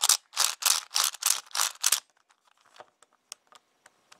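Moyu Weisu 4x4 speed cube being turned by hand: a quick run of sharp plastic clicks, about three a second, for two seconds, then a few faint ticks. The turning is very clicky, which the owner traces to a piece in the core that is out of alignment because it was screwed in wrong.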